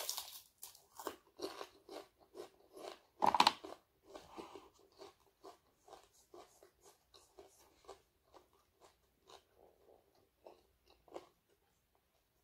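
A person chewing crisp fried dried fish close to the microphone, with a run of crunching bites that is loudest about three seconds in, then softer, sparser chewing crunches.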